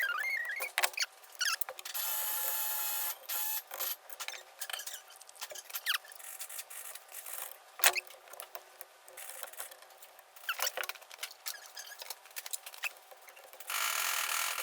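Small metal parts of an Edelbrock carburetor being handled during disassembly and cleaning: scattered clicks, clinks and scraping. Two short bursts of steady hiss come about two seconds in and again near the end.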